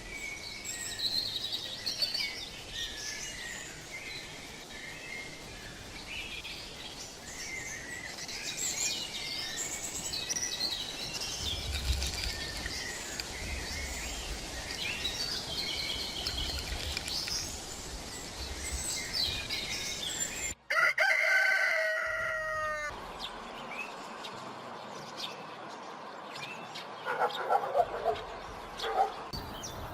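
Wild birds chirping and trilling continuously over the steady hiss of a mountain stream. About two-thirds of the way through, after a brief cut in the sound, a rooster crows once for about two seconds. A few lower, harsher bird calls follow near the end.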